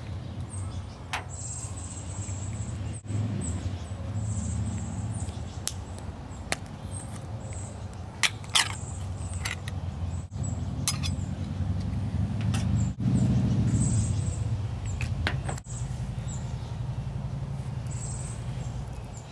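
Scattered clicks and scrapes of a metal spoon against a small open food tin, with the crinkle of foil biscuit wrappers, as pâté is scooped and spread on a biscuit. Under it runs a steady low rumble.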